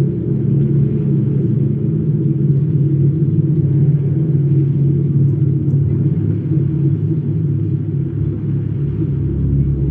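Loud, bass-heavy music from a concert sound system, heard as a muddy low rumble with held deep notes and little treble through a phone's microphone.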